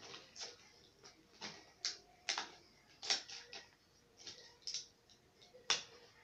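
Irregular small clicks and crinkles of packaging being handled and opened by hand, about a dozen short sharp sounds at uneven intervals.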